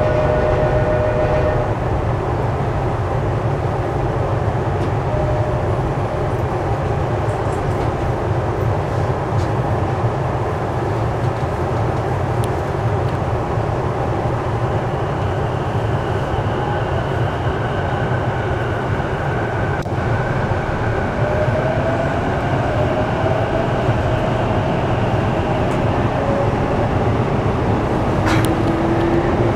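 Inside the car of a Sotetsu 12000 series electric train with Mitsubishi IGBT-VVVF inverters: a steady low hum of the car's equipment while it stands at the platform. In the last several seconds the inverter whine starts and rises in pitch as the train begins to pull away.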